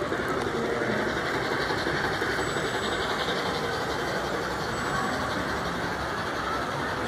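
Model passenger train running along the layout's track, a steady mechanical running noise of wheels and motor.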